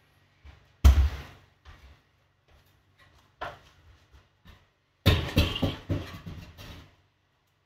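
Whole-house fan housing knocking and scraping against the ceiling opening as it is pushed up into the attic. A loud knock about a second in, a few light taps, then a burst of clattering knocks and scraping about five seconds in.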